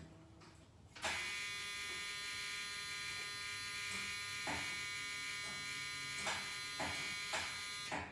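School bus warning buzzer sounding steadily as the key is turned. It starts about a second in, runs for about seven seconds with a few short knocks over it, and cuts off near the end. It sounds while the bus refuses to start, because the emergency-door interlock wires have been cut.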